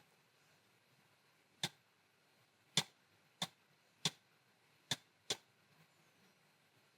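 Six sharp computer mouse-button clicks at uneven intervals, starting about one and a half seconds in and ending a little after five seconds. The last two come close together.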